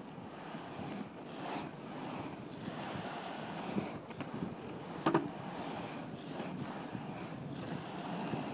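Skateboard wheels rolling over smooth concrete, a steady rolling noise with wind on the microphone, and a sharp knock about five seconds in.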